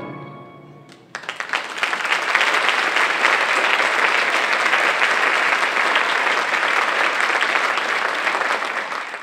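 An audience applauding, a dense steady clatter of many hands clapping that starts abruptly about a second in and fades out near the end. The tail of orchestral music fades away just before it.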